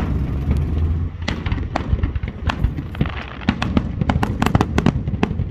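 Aerial fireworks going off in quick succession: many sharp bangs and crackles over a low rumbling boom, most densely packed in the second half.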